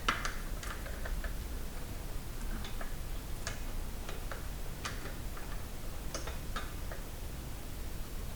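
Light metallic clicks and ticks, irregularly spaced, as steel lug bolts are handled and threaded by hand into a wheel hub.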